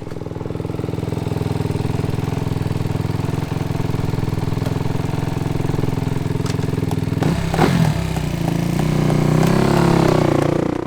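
Honda dirt bike engine running steadily at a low, even note; about seven seconds in the engine note rises and wavers as it is revved, then the sound cuts off abruptly.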